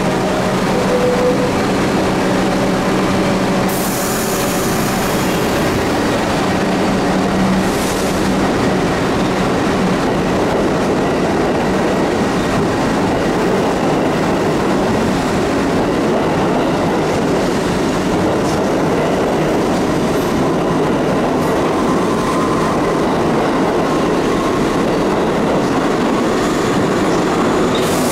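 R62A New York City subway train pulling out of a station and running past: a steady loud rumble and clatter of steel wheels on rail. A humming tone is heard over it for the first several seconds and then fades.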